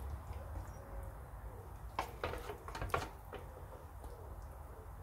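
A few light clicks and knocks of kitchen utensils and containers, grouped about two seconds in and again around three seconds in.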